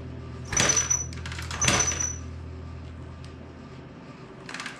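Two kicks of a 1990 Honda XR80R's kickstarter about a second apart, each a sharp clack with a brief high metallic ring, turning over its small four-stroke single without it firing: the engine has no spark.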